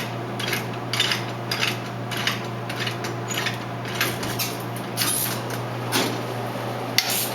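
Soda vending machine's T-handle door lock being unscrewed by hand: a run of short metallic clicks and scrapes, about two a second, with a sharper click near the end. A steady low hum from the machine runs underneath.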